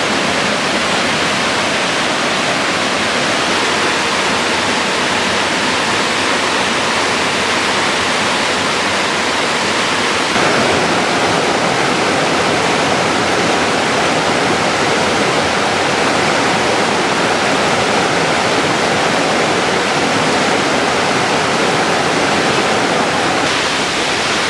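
Waterfall: white water cascading down rock slabs into a pool, a loud, steady rush of water. The rush changes a little in tone about ten seconds in.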